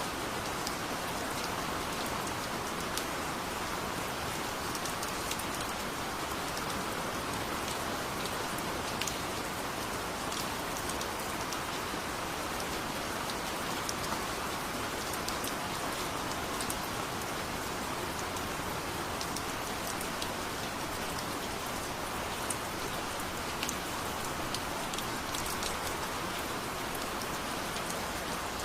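Steady, even rain, with many individual drops ticking sharply against a surface close by.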